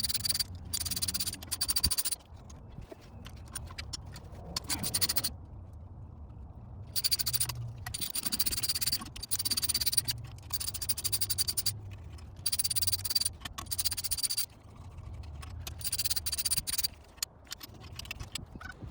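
Ratchet wrench clicking rapidly in short repeated bursts, a second or two at a time, as the intake manifold bolts are run out.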